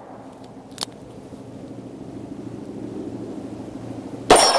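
A single 9mm gunshot from a Rock Island Armory AL9.0 revolver fired single action, with an echoing tail, near the end. A short click about a second in, the hammer being cocked, and a steady low drone underneath.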